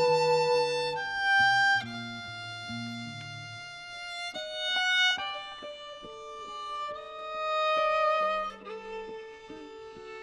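Bowed violin playing a slow melody of long held notes that change pitch every second or so. Lower accompaniment notes sound beneath it at first, then short repeated accompanying notes from about four seconds in.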